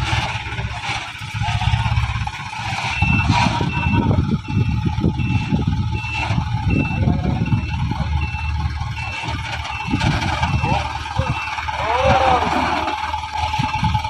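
A dump truck's reversing alarm sounding a regular run of short, evenly spaced beeps at one pitch, starting about three seconds in, over the truck's engine running.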